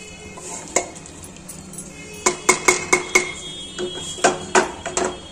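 Wooden spoon stirring thick keema with peas in an aluminium pressure cooker, knocking against the pot's metal side with short ringing clinks: a cluster of knocks about halfway through and a few more near the end.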